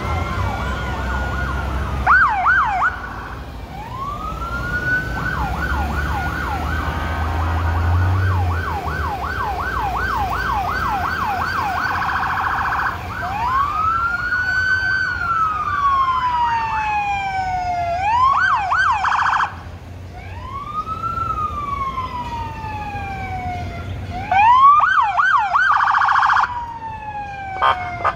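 Several emergency-vehicle sirens from a procession of fire engines and police cars driving past, overlapping: slow rising-and-falling wails, fast repeated yelps, and a few short bursts of very rapid warbling. A low rumble runs under the sirens for the first ten seconds or so.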